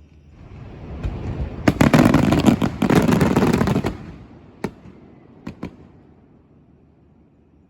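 Fireworks going off: a rumble builds, then a dense volley of bangs and crackling from about two to four seconds in, followed by three last separate sharp bangs and a fading rumble.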